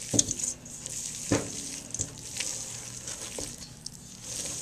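A metal utensil stirring and scraping stiff peanut butter fudge dough around a stainless steel mixing bowl, with a scratchy rasp and a few sharp clinks against the bowl, the loudest about a second in.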